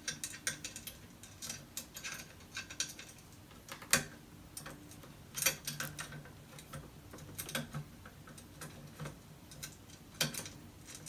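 Irregular light clicks and taps of hands fitting a monitor mount bracket and its screws to the back of a computer monitor, with a few sharper knocks among them.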